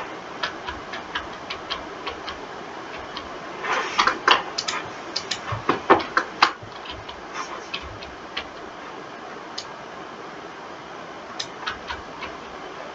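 Irregular clicking of a computer mouse and keyboard: scattered light clicks, with a denser, louder run of clicks and taps from about four to six and a half seconds in.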